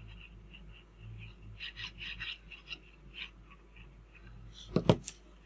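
Faint rustling of kraft cardstock being handled while glue is squeezed from a plastic bottle onto a paper tab, then two sharp knocks close together near the end.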